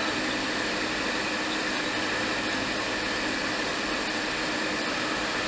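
Steady blowing hiss of a workbench air blower running without a break, with a faint high steady whine.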